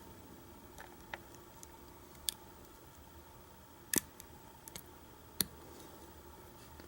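Sparse small metallic clicks of lock picking tools working the pin-tumbler cylinder of an old Kwikset doorknob, about half a dozen scattered clicks with the sharpest near the middle.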